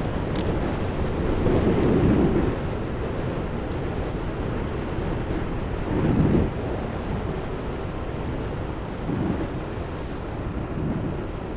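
Wind rushing over a cyclist's microphone while riding a road bike at race speed. It swells in gusts, strongest over the first couple of seconds and again briefly around the middle.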